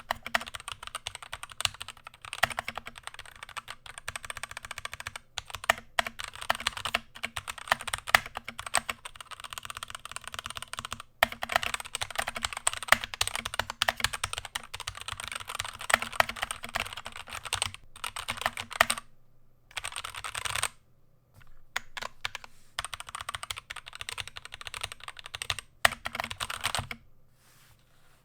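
Fast, hard typing on an Endorfy Thock Compact mechanical keyboard with Kailh Box Red linear switches: a dense stream of quiet key clicks. It breaks off briefly about two-thirds of the way through, and stops a second or so before the end.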